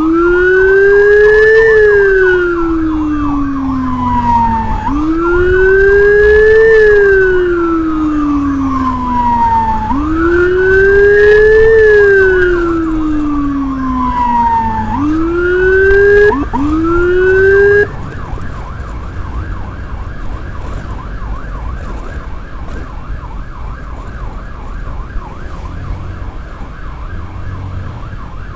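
Electronic emergency siren on a wail setting, sweeping slowly up and down about every five seconds, then two quicker sweeps before it cuts off suddenly. A quieter, fast-warbling siren then continues over steady road noise.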